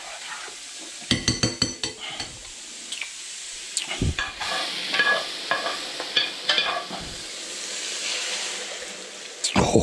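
Butter sizzling in a hot frying pan while a metal spoon clinks and scrapes against it. Near the end beaten egg and cream is poured in and the sizzle swells, followed by a quick run of clinks.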